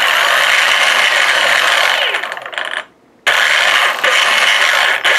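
The geared electric drive motors of an RC model warship are run up on the throttle, turning the prop shafts through spur gears. The result is a loud motor-and-gear whirr. It cuts off just under three seconds in and starts again half a second later.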